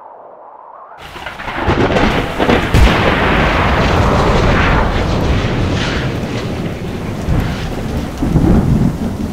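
Thunder sound effect: a sudden clap about a second in, then a long rolling rumble with a rain-like hiss that slowly fades and swells again near the end.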